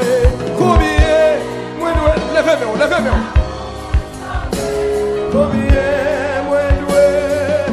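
Haitian gospel worship song: singing that holds long notes with vibrato over sustained keyboard chords and low drum hits.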